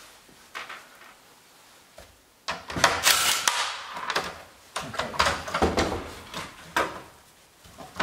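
Hard plastic clattering, knocking and scraping as the LED daytime-running-light strip of a Tesla Model S headlight housing is worked loose by hand. It starts about two and a half seconds in and comes as irregular clunks until near the end.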